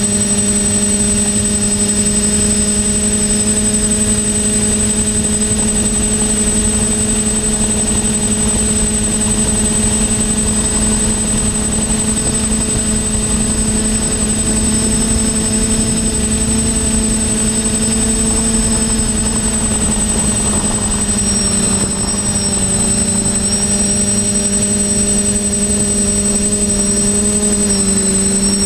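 Team Black Sheep Discovery quadcopter's electric motors and propellers running at a steady hover-to-cruise throttle, heard from the onboard GoPro as a loud, even drone with a thin high whine above it. The pitch shifts slightly as the throttle changes, a little over halfway in and again near the end.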